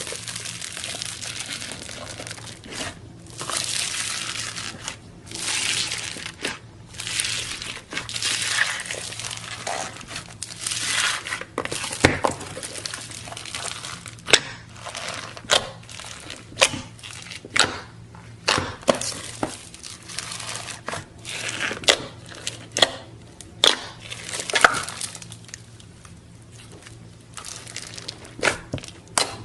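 Crunchy slime being squeezed and pressed by hand, giving repeated crinkling, crackling crunches about once a second; about halfway through, sharp popping clicks come roughly once a second.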